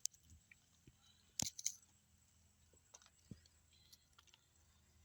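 Mostly quiet, with a few faint clicks and crackles of grilled food being broken apart by hand, and a sharper crackle about a second and a half in.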